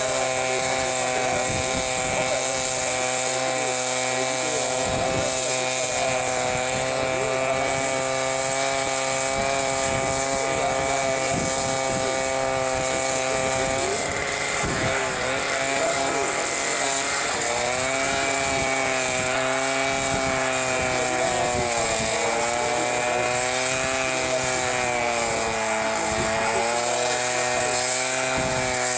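Engine of a mobile rail-welding machine running loudly and steadily. About halfway through, its pitch starts dipping and recovering again and again.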